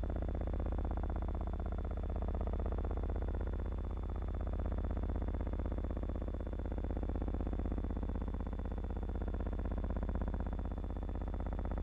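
A steady low hum and buzz with a faint high whine, unchanging throughout: soundtrack noise of an old film transfer rather than any sound from the scene.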